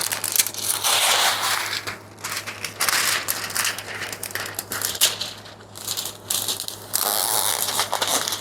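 Diamond painting canvas with its plastic protective cover crinkling as it is handled and smoothed out, in several bursts of a second or so.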